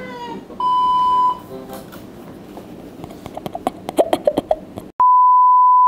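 Two steady, single-pitched censor bleeps: a short one about half a second in, and a longer one about five seconds in, with all other sound muted under it.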